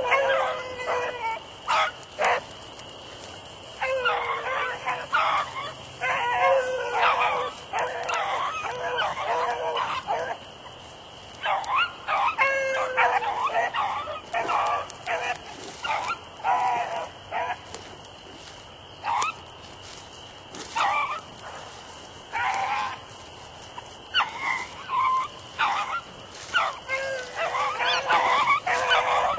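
Beagles baying on a rabbit's trail: repeated pitched bays and barks from more than one hound, some calls sliding down in pitch, in bursts with short lulls between them.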